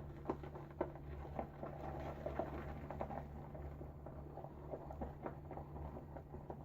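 Silvertip badger shaving brush working a thick L'Occitane Cade cream lather in a bowl: a run of soft, irregular wet clicks and squelches over a steady low electrical hum.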